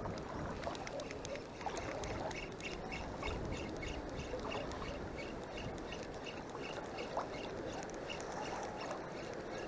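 Choppy shallow sea water lapping around a wading angler, a steady wash of water noise. From about two seconds in, a light regular ticking of roughly three a second runs over it.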